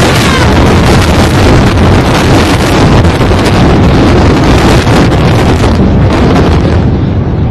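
Two high-rise towers collapsing in a controlled explosive demolition: a loud, continuous rumble of falling concrete and debris with heavy noise on the microphone. Near the end the hiss thins out and the rumble carries on.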